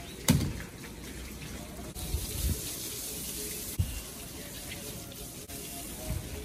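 Water from a garden hose spraying and splashing over a car's windscreen and roof, a steady hiss. A few short low thumps, the loudest just after the start.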